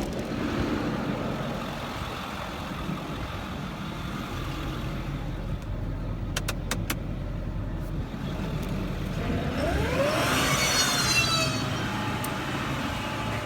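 Ford 6.4 Power Stroke diesel running in a 2008 F-550, with a few sharp clicks about six seconds in. Near the end a rising whine comes in as the under-hood VMAC air compressor is switched on and builds air pressure.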